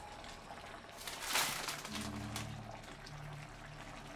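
Steamed fish and cracker broth simmering in a frying pan. A louder wet hiss and slosh comes about a second in as a wooden spatula moves through the liquid.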